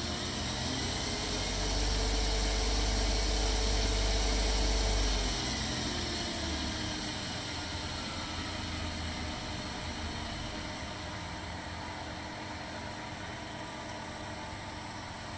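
Scanima pilot high-shear mixer running: steady electric-motor hum with a constant high whine. About five seconds in, the deep rumble drops away and the pitch falls as the machine slows.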